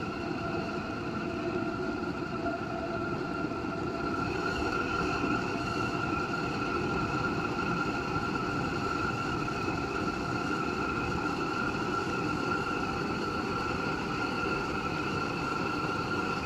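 Propane burner of a homemade forge hissing steadily as gas flows, with a high, steady whistle over the hiss.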